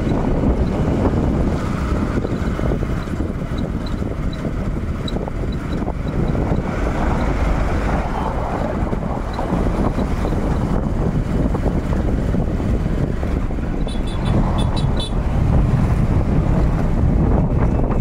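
Wind buffeting the phone's microphone over a steady low rumble of road and traffic noise, with the camera moving along a road bridge. About 14 seconds in, a short run of rapid high beeps sounds briefly.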